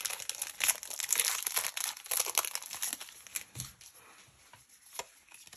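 Crinkly plastic packaging of a trading-card booster pack being handled and torn, a dense run of crackling that thins out after about three seconds, with a single sharp click near the end.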